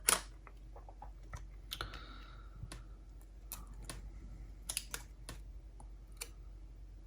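Irregular small clicks and taps from handling the casing and small parts of a Sony MZ-RH1 MiniDisc recorder as it is taken apart, the loudest click right at the start.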